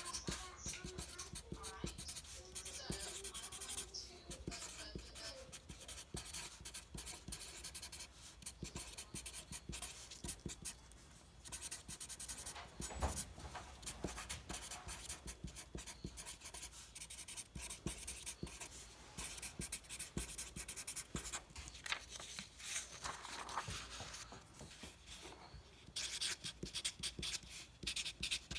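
Sharpie permanent marker writing on paper: a steady run of short scratchy strokes as words are written out.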